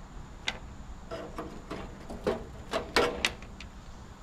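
Sharp clicks and small metallic clinks from pliers and wiring being worked against an air conditioner's sheet-metal cabinet while the wiring is stripped out. There are about eight of them, irregularly spaced, some ringing briefly.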